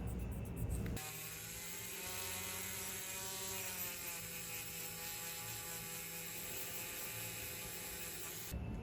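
An electric power tool whirring at a steady speed, its pitch sinking slightly over the first couple of seconds and then holding. It cuts off abruptly near the end, with music briefly before and after it.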